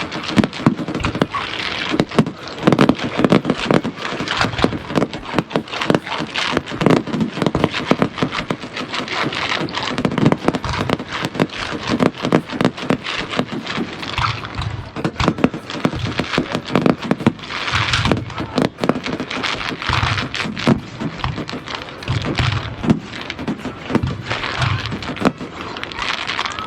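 Fireworks going off: a constant run of bangs and crackles, many a second, without a break.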